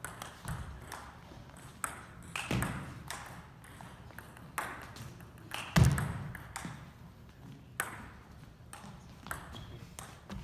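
Table tennis ball clicking off rubber paddles and the table in a rally, a run of sharp, irregularly spaced ticks about a second apart. A heavier thud about six seconds in is the loudest sound.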